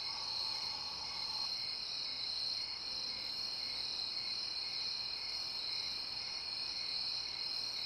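Crickets chirping: a steady, high-pitched trill with a faint pulsing layer beneath it.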